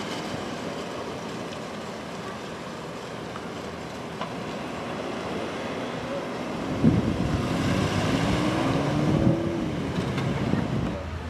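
Street traffic noise; about seven seconds in, a vehicle engine grows louder, its pitch rising and then falling.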